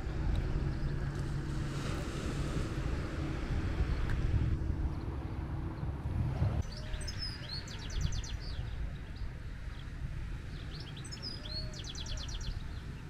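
Outdoor ambience: a low rumble with a faint steady hum for about the first half, then small birds singing in two bursts of rapid high trills, one just past the middle and one near the end.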